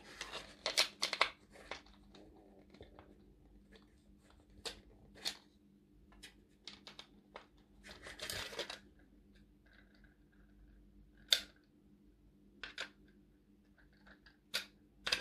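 Small plastic kit parts being handled: scattered light clicks and scrapes as press clips are pushed into a plastic truck floor pan, with a longer scrape about eight seconds in.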